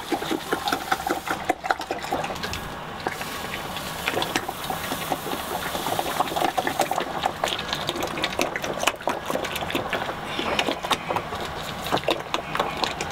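Malt grain poured from a plastic jug into hot water in a cool-box mash tun and stirred in with a paddle: a continuous wet rustling and splashing with many small knocks and scrapes, the dough-in stage of an all-grain beer mash.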